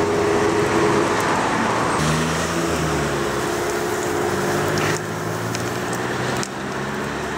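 Steady hiss of water splashed into a hot tandoor onto the samsa stuck to its walls, turning to steam, over a low steady engine-like hum.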